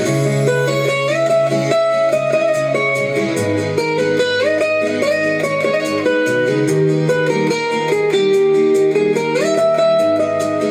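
Instrumental guitar passage of a song with no singing: a melody whose notes slide up into pitch several times, over a steady bass line.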